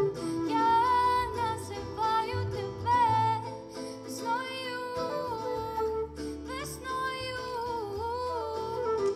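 A woman singing a slow melody to her own acoustic guitar, with a flute and a cello playing along.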